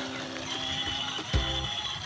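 Background music with a beat: held notes changing in steps, with a low thump a little past the middle.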